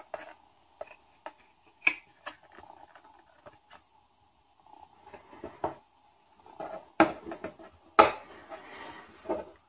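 Handling noise from a phone and its TPU screen protector: fingers rubbing and pressing along the film, with scattered small clicks and a few sharper knocks of the phone being moved and set down, the loudest about seven and eight seconds in.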